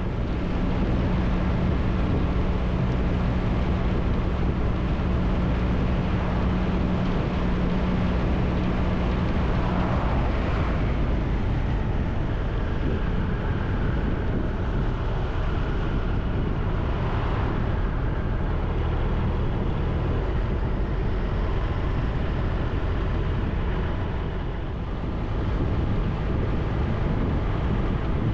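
Triumph Tiger 1200's three-cylinder engine running as the motorcycle rides along, over a constant rush of wind and road noise. A steady engine note drops away about ten seconds in.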